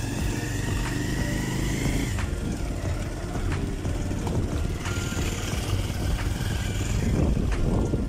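Motorcycle engine labouring up a steep, rough dirt track. Its steady note holds for about two seconds, then gives way to a rougher, noisier running with scattered knocks and rattles.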